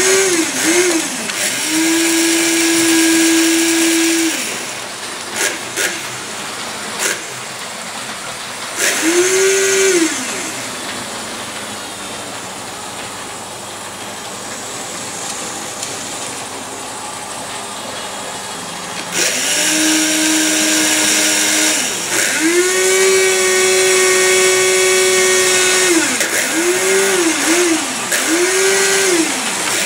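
Small electric motors of a model railway crane whining as the grab is worked, each run rising in pitch as it starts, holding steady, then falling away as it stops, some short runs in quick succession. A few sharp clicks come about five to seven seconds in, and there is a quieter stretch of low hum in the middle.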